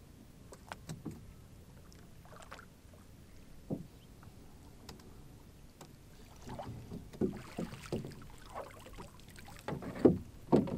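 Fisherman hauling in a net from a canoe: scattered knocks against the hull and water splashing. The sounds are sparse at first, busier in the second half, with the loudest knocks near the end.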